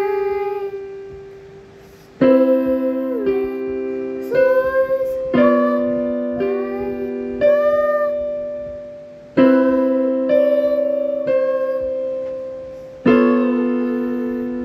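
Piano played slowly, chord after chord: about nine chords, each struck and left to ring and fade. A girl's voice sings along in places over the chords.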